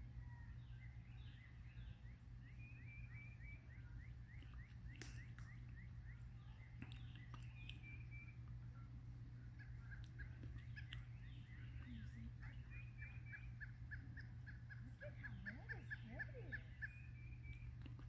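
Faint birdsong: several series of short, repeated chirped notes, including a steady run of about five notes a second over a low background hum.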